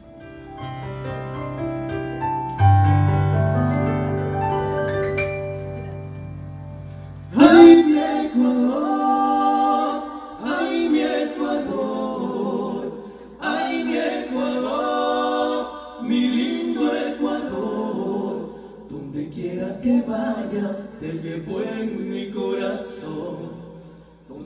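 Live song opening: held keyboard chords build up for about seven seconds, then several voices come in together, singing in harmony in phrases.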